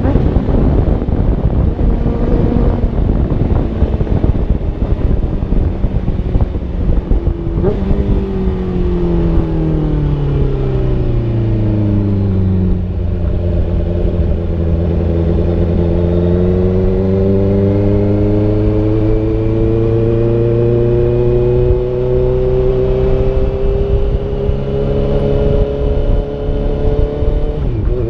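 Honda CBR650F's inline-four engine heard while riding. Its pitch falls as the bike slows, from about 8 to 12 seconds in, then climbs slowly from about 16 seconds on. Heavy wind rumble from the bare GoPro's microphone runs under it throughout.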